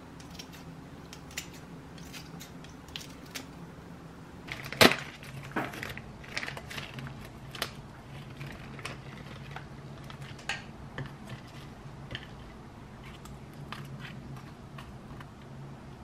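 Kitchen food-prep handling sounds: kitchen scissors snipping cabbage kimchi, a plastic bag crinkling as fish is slid out of it, and light knocks of dishes on a stone counter. There is one loud clack about five seconds in, over a low steady hum.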